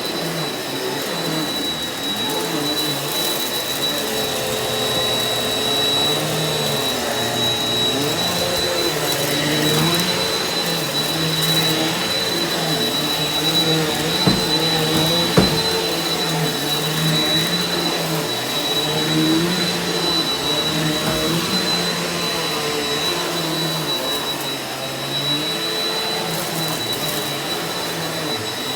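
Eureka Power Speed upright vacuum cleaner running steadily over carpet, with a steady high-pitched motor whine and a lower hum that rises and falls. Two sharp clicks about a second and a half apart come near the middle.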